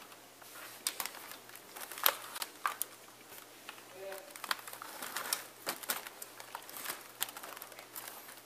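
Acer laptop keyboard keys clicking in irregular runs as someone types and presses keys, with a short faint tone about four seconds in.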